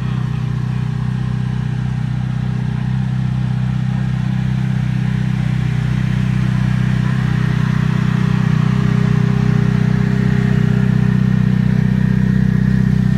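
Sports-car engines idling together, a loud, steady low drone of exhaust with a fast even firing flutter and no revving.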